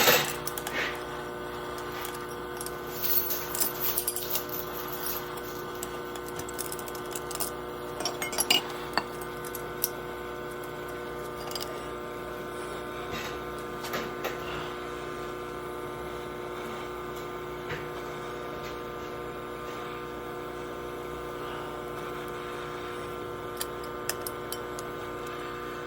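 A steady hum of several even tones throughout, with scattered light metallic clinks and taps, more of them in the first ten seconds and again near the end.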